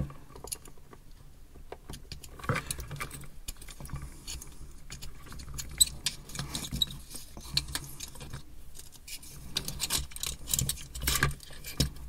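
Hands handling a small black plastic charging base and a thin wire, giving irregular clicks, taps and rustles as the wire is threaded through a hole in the base.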